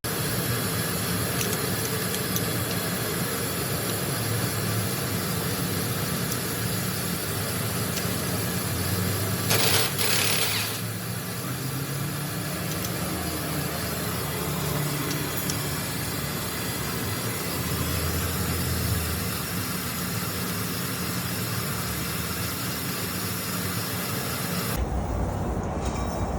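A vehicle running, a steady mix of engine and road noise, with a brief louder rush about ten seconds in and a sudden change in the sound near the end.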